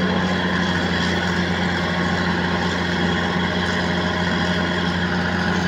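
Diesel engine of a Hitachi Zaxis 210 hydraulic excavator running at a steady speed, an even drone with no change in pitch or level.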